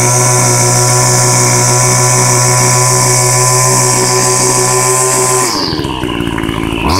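Small Homelite engine with a swapped-on Ryobi muffler running at high revs, steady at first; about five and a half seconds in the revs drop sharply, then surge up and fall away again near the end. It is still warming up after a cold start and hunting, its carburettor in need of adjustment.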